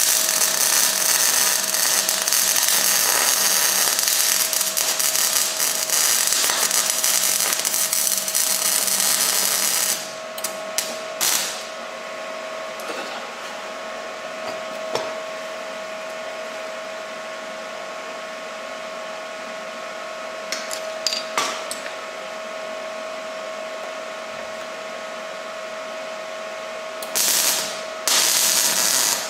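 MAG (semi-automatic gas-shielded) welding: a crackling hiss of the arc that runs for about ten seconds and cuts off sharply, then a second short burst near the end. A few clicks come in the pause, over a steady hum.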